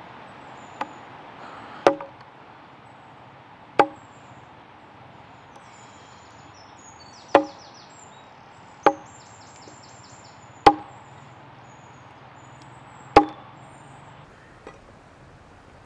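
Slow, single chopping strokes of a blade: about eight sharp chops spaced one to three seconds apart, each with a short ring, two of them lighter than the rest.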